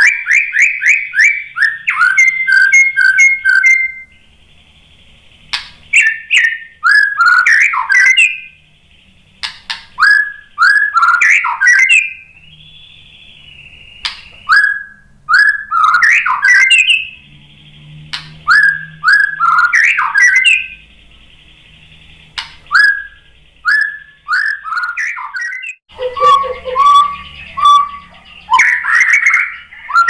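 White-rumped shama singing: loud phrases of rapid, repeated whistled notes and sweeping trills, a new phrase every couple of seconds.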